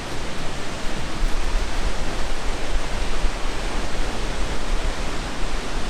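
Barron Falls in full flood after heavy rain, a steady, loud roar of falling water with a deep rumble underneath.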